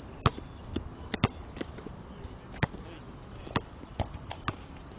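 Basketballs hitting a court: about ten sharp, irregular thuds, the loudest a little after the start and just over a second in.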